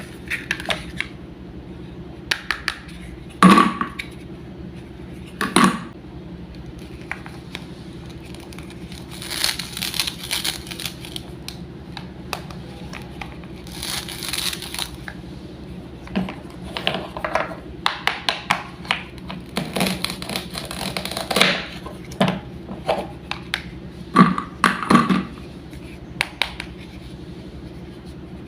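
Wooden toy fruits and vegetables being handled and cut apart with a toy knife: scattered sharp wooden knocks and clicks, with clusters of quick scraping strokes, over a faint steady hum.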